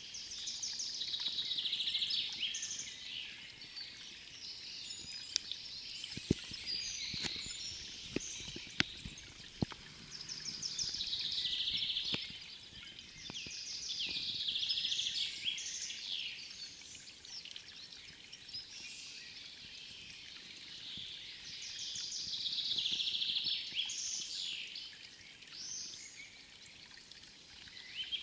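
A songbird singing repeated trilled phrases, each two to three seconds long and a few seconds apart, over faint trickling water. A handful of sharp ticks come in the middle.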